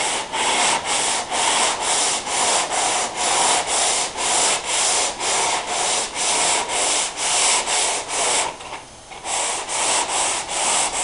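80-grit sandpaper on a flexible sanding block rubbed back and forth over a car door panel for long, straight block sanding. It makes a rhythmic rasping hiss of about two to three strokes a second, with a short pause a little after eight seconds in.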